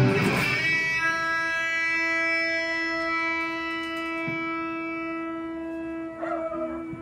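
Electric guitar with a Mljackie Kratos wooden-bobbin humbucker in the bridge position, through an amplifier: a chord is cut off, then a single note rings for about five seconds, fading slowly, which shows off the pickup's sustain. A few short picked notes follow near the end.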